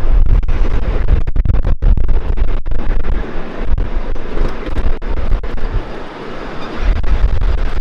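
Wind rushing over the microphone on an open ride-on miniature train, over the rumble of the train running along its track. The sound cuts out for an instant several times in the first three seconds.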